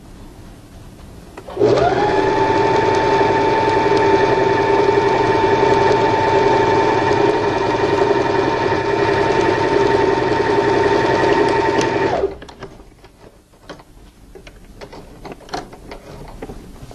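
Sewing machine speeding up quickly about a second and a half in, then running steadily at speed for about ten seconds while straight-stitching a seam, and stopping suddenly. A few faint clicks follow.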